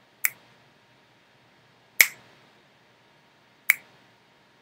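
Three single finger snaps, sharp and short, spaced about a second and a half to two seconds apart. Each snap is picked up by a microphone as a sound-input trigger that fires a lighting cue.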